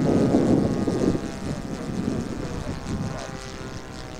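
The Laser 160 inline twin four-stroke glow engine of a large RC P-51 Mustang running steadily in flight, a droning engine note with many overtones. A louder rushing noise swells over the first second or so and dies away.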